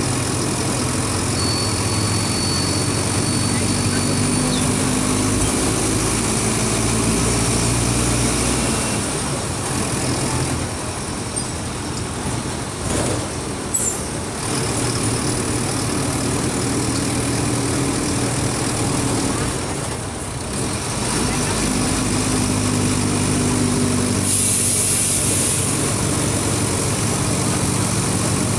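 Mercedes-Benz OF 1722M bus diesel engine pulling under load, its pitch climbing and twice dropping back as the bus shifts up through the gears. About 24 seconds in comes a sharp hiss of air.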